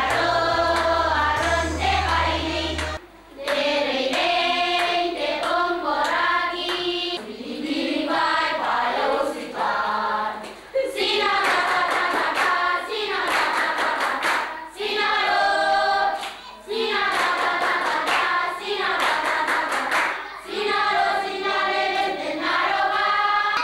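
A group of girls singing together in short phrases, with hands clapping along.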